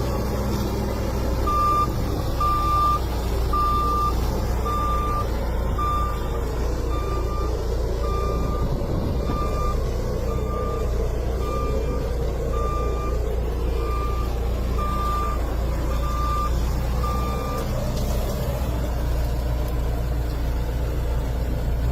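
A road-repair truck's reversing alarm beeping at one steady pitch about once a second, over the low, steady running of the truck's engine. The beeping stops near the end while the engine keeps running.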